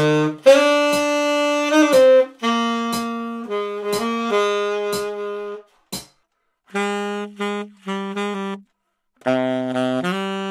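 Tenor saxophone playing a jazz phrase of mostly sustained notes with a few short breaks, recorded a couple of feet away to take in the room sound. First it is heard in a bare, untreated small room, then, after a brief gap about six seconds in, in the same room lined with egg-crate acoustic foam.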